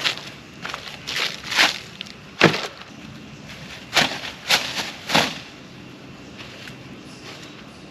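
Pieces of firewood being handled and set down, about seven short wooden knocks over the first five seconds.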